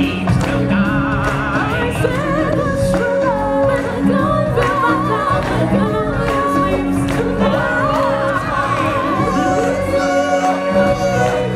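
Live stage-show music with singing: voices hold long, wavering notes over the band accompaniment.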